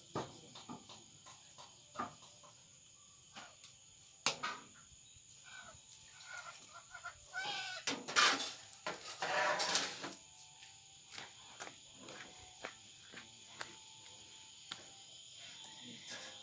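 Scattered light clicks and taps of an aluminium basin and a plastic bowl being handled, over a faint, steady, high-pitched insect drone. Two louder animal calls come about eight and nine and a half seconds in.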